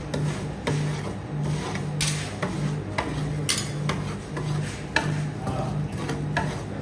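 Metal spatulas scraping and tapping on a frozen steel cold plate, spreading and smoothing a banana ice cream base flat for rolled ice cream. A run of scrapes with sharp clinks, the loudest about two, three and a half and five seconds in.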